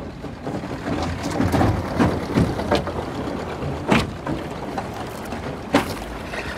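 Thin lake ice breaking against the bow of a small boat: irregular crunching and cracking with sharp knocks, the loudest about four seconds in and another near six seconds.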